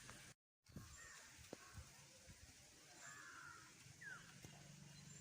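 Near silence: faint outdoor ambience with a few faint bird calls, one a short falling call about four seconds in. The audio drops out completely for a moment just after the start.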